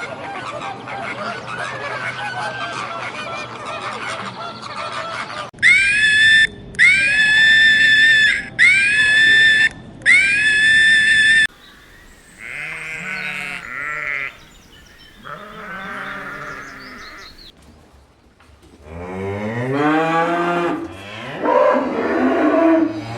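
Sheep and goats bleating. First comes a dense chorus of many animals, then four loud, high-pitched calls in a row, each about a second long, then several separate wavering bleats with pauses between them.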